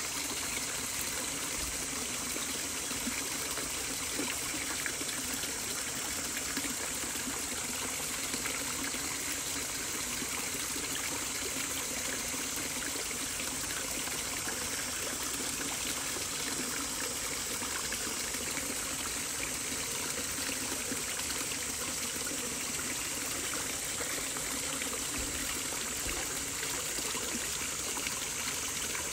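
Running water from a stream, trickling steadily and evenly throughout.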